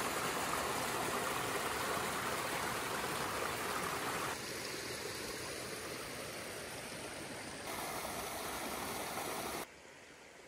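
A small forest creek flowing steadily, its water noise shifting twice. About nine and a half seconds in it cuts off abruptly, leaving a much quieter background.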